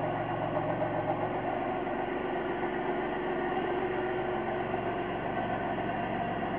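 Pontiac Grand Prix GTP's supercharged 3.8-litre V6, freshly built with a ported blower, aftermarket cam and headers, idling steadily through the stock cat-back exhaust.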